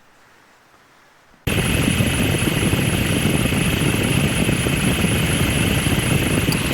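Toyota Hilux engine running at the open engine bay: a loud, steady mechanical noise with a thin high whine on top, which starts abruptly about one and a half seconds in and cuts off suddenly. The owner has traced a bearing noise in this engine to a failing fan belt tensioner.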